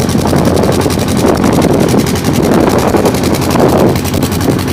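Wind rumbling hard on the microphone aboard a motor boat crossing choppy river water, with the boat's engine running steadily underneath.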